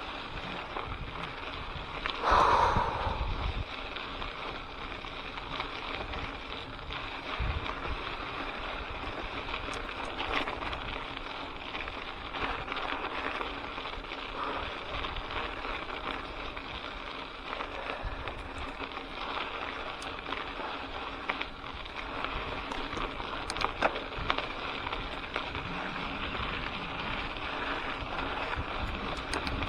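Mountain bike riding a dirt singletrack, heard from an action camera: steady tyre noise and wind on the microphone, with scattered knocks and rattles from the bike over bumps. A brief louder burst comes about two and a half seconds in.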